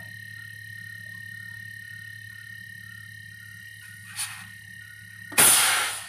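Refrigerator compressor humming steadily while the suction line is blown through, with a short hiss about four seconds in and a louder burst of hissing near the end as gas and oil blow out of the open line.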